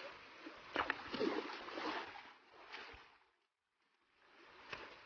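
Shallow stream water running and splashing as hands work through it among the rocks, with a few sharp splashes in the first two seconds. The sound cuts out completely for about half a second a little past the middle.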